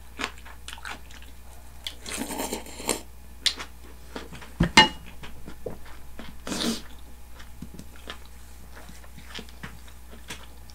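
Close-up chewing of a full mouthful of rice and fried chicken: many small wet mouth clicks, with two short noisy stretches. About five seconds in there is one sharp knock that rings briefly.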